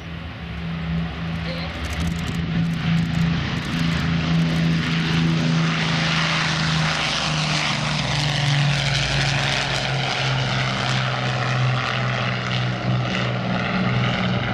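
Avro Lancaster's four Rolls-Royce Merlin V12 engines running in a low flypast, growing louder as it comes in. About seven seconds in the engine note drops in pitch as the bomber passes and heads away.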